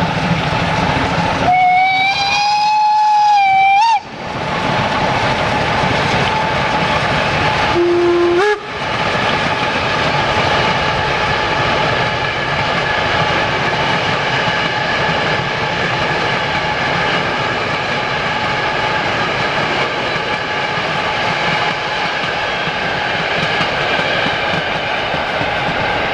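Steam whistle of the BR 52 steam locomotive 52 1360 blowing for about two seconds, then a shorter, lower-pitched blast about eight seconds in. The rest is the steady running noise of the steam train.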